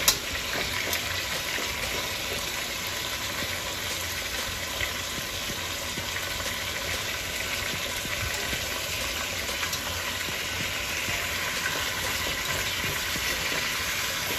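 Oxtail pieces searing in hot oil in a pot, a steady sizzle. Metal tongs turning the pieces give a sharp click at the start and small taps here and there.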